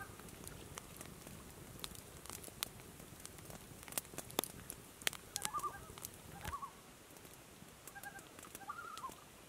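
Campfire crackling with irregular sharp pops, quietly. A few short squeaky calls come twice, around the middle and near the end.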